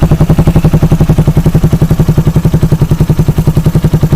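Suzuki Raider 150's single-cylinder four-stroke engine idling steadily through an aftermarket Akrapovic muffler with its silencer insert removed, a loud, even, rapid exhaust pulse.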